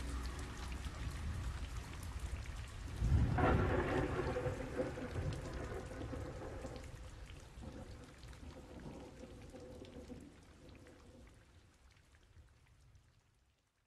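Rain falling, with a low rumble of thunder swelling about three seconds in. The whole sound then fades out gradually to silence near the end.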